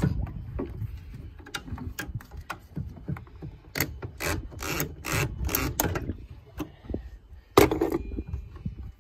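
Hand tools scraping, rubbing and clicking against a hose clamp and the plastic coolant hose fitting while the clamp is squeezed and worked loose. A quick run of rubbing strokes comes in the middle, and there is a sharp knock near the end.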